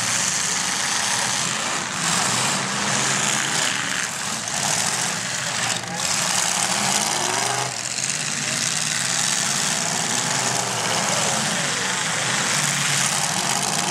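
Several demolition derby cars' engines running and revving as they drive into each other, over a steady wash of noise.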